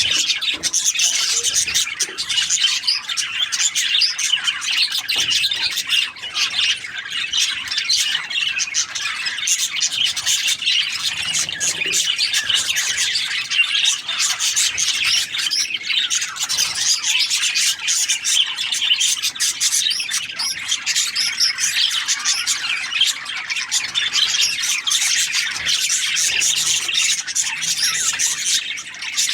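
A flock of budgerigars chattering continuously, many overlapping chirps and warbles with scratchy squawks mixed in.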